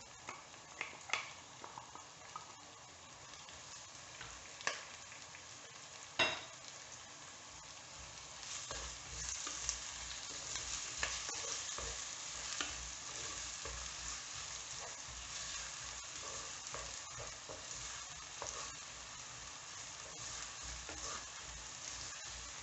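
Small onions frying in hot oil in a clay pot and being stirred: a few light knocks in the first seconds, then a steady sizzle that grows louder about eight seconds in.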